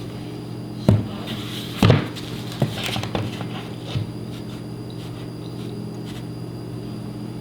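Pieces of wood being handled on a workbench: four sharp knocks in the first four seconds with a brief scrape among them, over a steady low hum.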